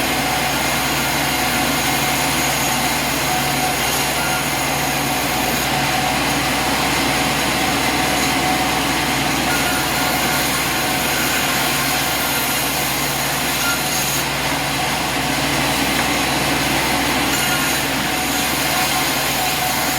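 Sawmill machinery running steadily: an even, engine-like hum with a few fixed tones over a constant noisy hiss.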